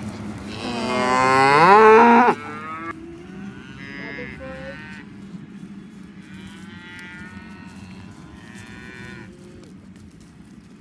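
Cattle mooing: one long, loud moo in the first two seconds, then fainter moos from other cattle. The herd is bawling for feed at feeding time.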